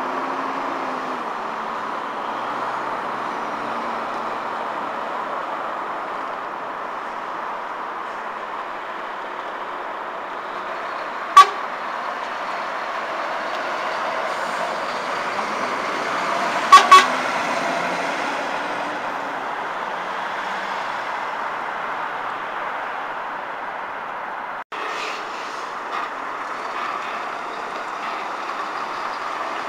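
Steady road traffic dominated by articulated lorries' diesel engines running as they turn through a junction. A short, very loud vehicle horn toot comes about a third of the way in, and two quick toots follow a few seconds later.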